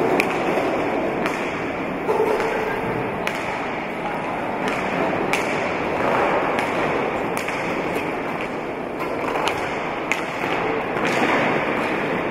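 Roller hockey play: quad roller-skate wheels rolling steadily over a wooden floor, with sharp clacks every second or two as sticks strike the ball.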